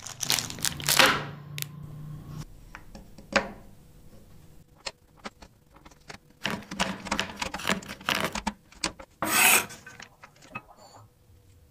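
Plastic wrapper crinkling as a bar of dark chocolate is handled and unwrapped, then a knife chopping the chocolate on a wooden cutting board in a run of quick, sharp cuts. About nine and a half seconds in, the blade scrapes across the board as the chopped pieces are gathered.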